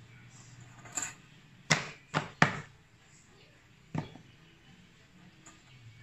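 Five sharp clacks of punched calendar pages and a metal double-loop binding wire being handled on a wire binding machine as the pages are hung on the wire. Three come close together about two seconds in, the loudest of them, and the last about four seconds in.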